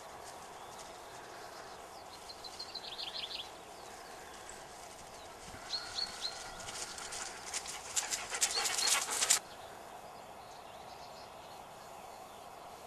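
Groenendael Belgian Shepherd dog panting in quick breaths, with a few short high whines. The panting is loudest in the second half and breaks off suddenly.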